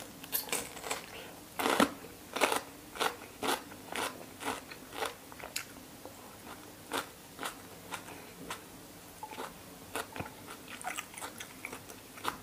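A person chewing a mouthful of crunchy raw bitter gourd close to the microphone: steady crunches about twice a second.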